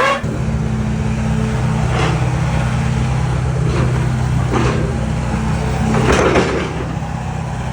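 Excavator engine running steadily at a low, even pitch, with a few short noises on top, the loudest about six seconds in.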